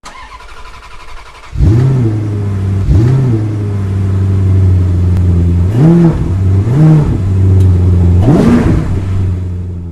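Car engine running and revved five times, each blip of the throttle rising and falling in pitch over a steady idle, after a quieter first second and a half.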